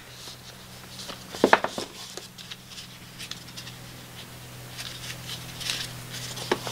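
Small cardboard box being worked open by hand: paper scraping and rustling with a few sharp taps and clicks, the loudest about a second and a half in, as the camera in its plastic housing is slid out. A steady low hum runs underneath.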